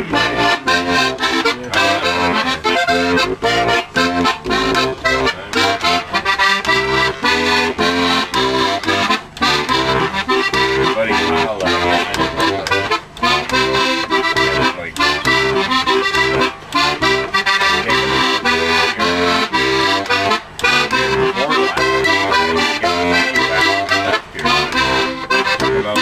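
Accordion playing an instrumental tune, the melody over a steady pulsing bass-and-chord accompaniment.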